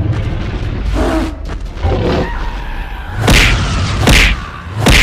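Cartoon fight sound effects: a run of about five heavy thuds and booms over a low rumble, louder in the second half.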